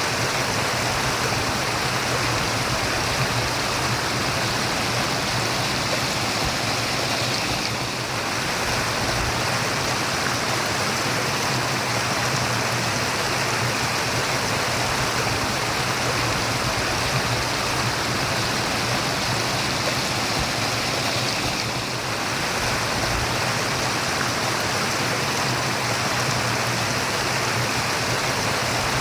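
Running water murmuring steadily, like a babbling stream, with the flow dipping slightly twice.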